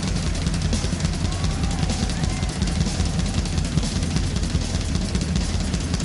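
Drum kit solo: fast, dense strokes on bass drum, snare and toms, with cymbals washing over them.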